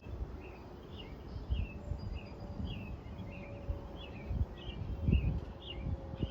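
A bird calling over and over, a short falling chirp repeated steadily a little under twice a second, over low rumbling bumps that are loudest about five seconds in.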